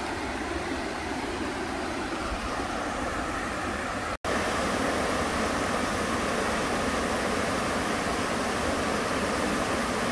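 Waterfall rushing, a steady even noise of falling water. It cuts out for an instant about four seconds in and comes back a little louder.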